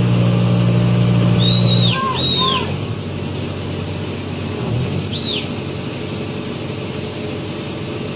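Wheeled excavator's diesel engine running: a loud steady hum that drops away suddenly about two seconds in, leaving a quieter steady rumble. Short high chirps, like bird calls, come twice around two seconds in and once about five seconds in.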